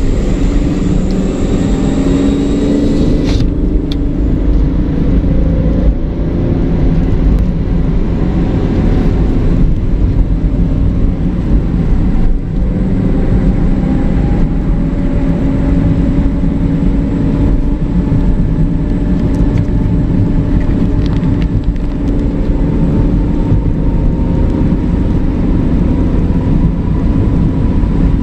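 Truck engine running steadily at cruising speed on the highway, with road and tyre noise, heard from inside the cab.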